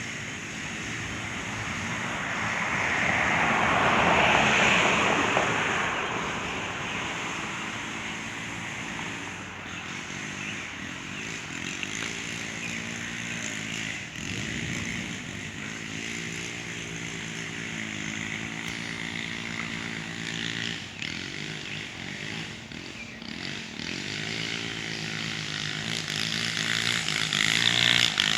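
Small two-stroke engine of a string trimmer (weed whacker) running steadily at a distance, its pitch wavering now and then with the throttle. A broad whooshing swell rises and falls about four seconds in.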